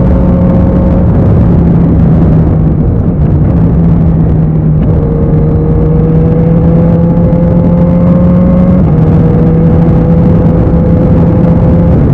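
Kawasaki Z900's 948 cc inline-four running loud through an IXIL aftermarket exhaust under steady load. Its pitch climbs slowly and drops in a quick step a few times, typical of upshifts through the gears.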